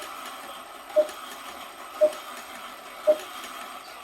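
Antique cuckoo clock striking, its bellows giving a single short "cook" note about once a second instead of the two-note "cuckoo": only one of its two bellows is sounding.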